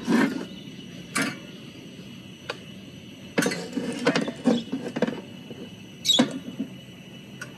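Metal knocks, clicks and scrapes of a stovetop sandwich maker (pie iron) being handled and set back on the wire grill of a small lit camp stove, with a sharper clank about six seconds in, over a faint steady background from the burning stove.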